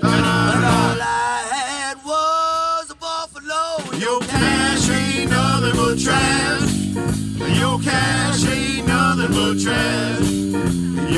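Live electric blues band with electric guitar, bass guitar, drum kit and blues harmonica played into a handheld mic. About a second in the band drops out for a few seconds, leaving a lone lead line of held, bending notes. The full band comes back in after that.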